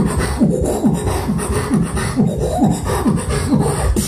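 Live beatboxing into a handheld microphone: a steady rhythm of short falling bass tones about twice a second, with sharp hi-hat and snare sounds between them, cutting off right at the end.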